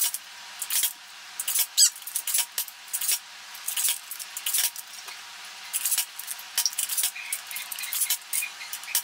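Rapid series of sharp plastic clicks and clacks, about two or three a second, from a BoomCo toy dart blaster being primed and fired over and over, with Smart Stick darts striking the target. The sound is thin, with no low end.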